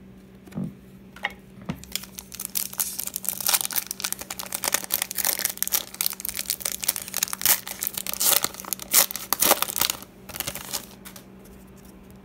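Wrapper of an Upper Deck hockey card pack crinkling and tearing as it is opened by hand: a dense run of crisp crackles that starts about two seconds in and stops about a second before the end.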